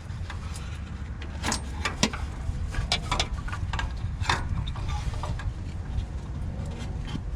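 Scattered clicks and knocks of a new fuel filter being pushed into its bracket under a pickup truck, over a steady low rumble.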